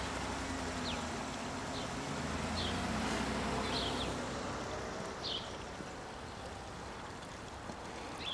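A passenger van's engine running low as the van pulls away, fading out about halfway through. Short high chirps recur roughly once a second over a faint outdoor hiss.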